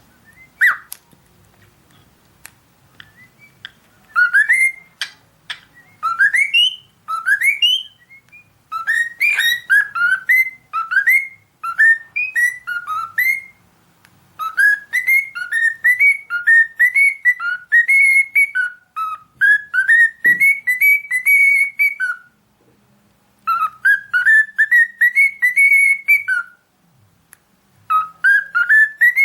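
Cockatiel singing: phrases of short, rising whistled notes, repeated again and again, with brief pauses between phrases.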